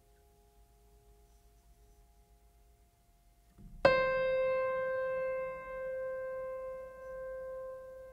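Background music: faint held tones, then about four seconds in a single struck piano-like note that rings out slowly, pulsing gently as it fades.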